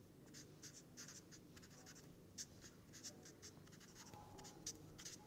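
Felt-tip marker writing on paper: a run of faint, short scratchy strokes as letters are drawn.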